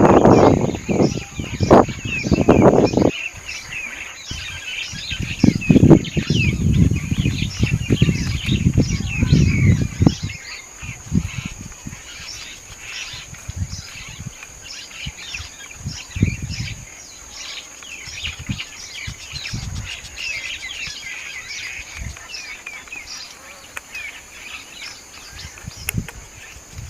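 Many small birds chirping continuously in quick, short calls, under a steady high-pitched hum. Loud low rumbling comes and goes during roughly the first ten seconds, then fades.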